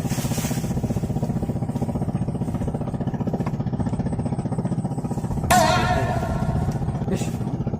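A small engine running steadily at an even speed. About five and a half seconds in, a sudden loud, high pitched sound cuts in over it and fades within a second or so.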